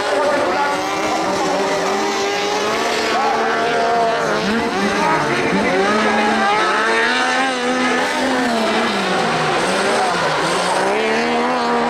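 Several kart cross buggies racing on a dirt track, their motorcycle engines revving up and falling back through the gears, overlapping one another.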